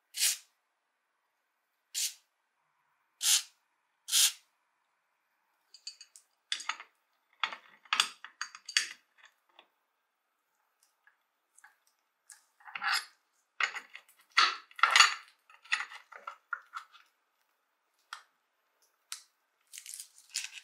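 Four short hisses from a WD-40 aerosol can in the first few seconds. Then pliers grip and work the rusty cutter's pivot bolt, with irregular metal clicks, clinks and scraping that are busiest in the middle.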